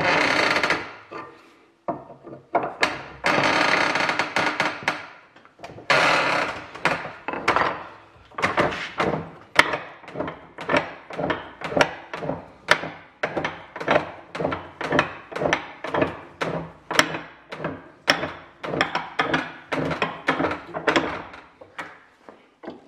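Tool work on a metal strap-bending die: a few longer, denser stretches of clattering in the first several seconds, then a long run of sharp knocks with some ringing, about two or three a second.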